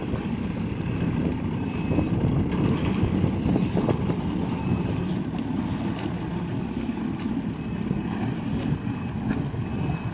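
Yamaha VX-series jet ski running as it pulls away across the water, its jet pump throwing spray, with wind buffeting the microphone.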